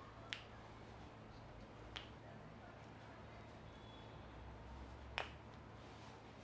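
Three sharp snapping clicks from a masseur's hands during a head massage, the second about a second and a half after the first and the third about three seconds later, the third the loudest.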